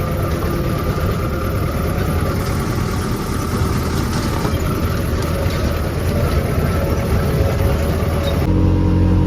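A motor vehicle's engine running steadily over road rumble. About eight and a half seconds in the sound changes abruptly to a steadier, lower engine hum.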